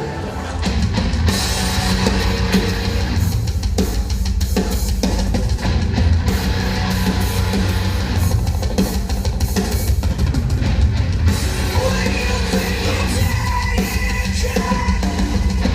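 Rock music played at full volume, with heavy guitars and a drum kit. It gets louder about half a second in.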